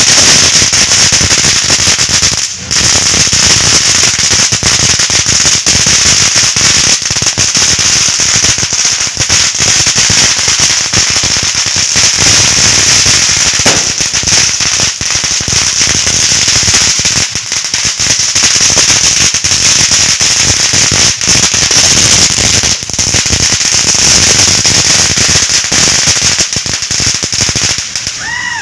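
Firecrackers and ground fireworks going off nonstop: a dense, loud crackle of rapid pops over a steady high hiss.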